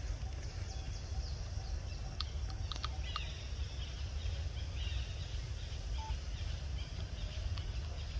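Outdoor ambience: a steady low rumble with faint, scattered high bird chirps, and a few sharp clicks about two to three seconds in.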